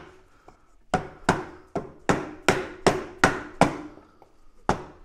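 Rubber mallet striking a block of wood held against a steering-head bearing race, driving the lower race into the head tube of a Honda CT70 frame. A run of about eight sharp knocks, roughly three a second, starts about a second in, and two more come near the end.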